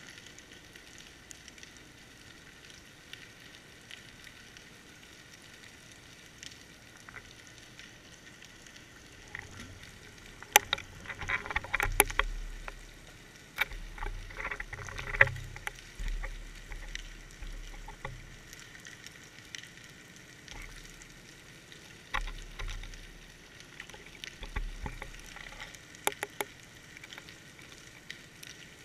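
Underwater sound picked up by a GoPro inside its waterproof housing: a steady muffled crackling and fine clicking. From about ten seconds in there are clusters of sharper knocks and low thumps, which die back before the end.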